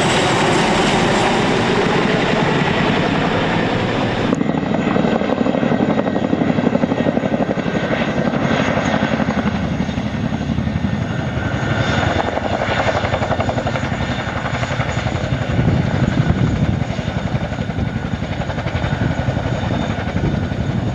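Boeing CH-47 Chinook tandem-rotor helicopter flying close by: a fast, steady chop of the rotor blades over the whine of its twin turbine engines. The sound changes abruptly about four seconds in.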